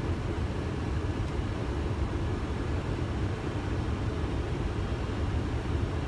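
Steady cabin noise on the flight deck of a Boeing 747-400 in flight on approach: an even low rumble that does not change.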